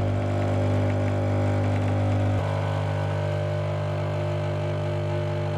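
Nescafé Dolce Gusto capsule coffee machine's pump humming steadily as it dispenses a drink, first frothy milk and then coffee into the glass. The hum drops slightly in level about two and a half seconds in.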